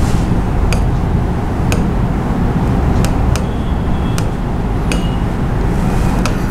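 Sharp taps on the glass screen of an interactive digital board, about seven scattered clicks, over a steady low rumble.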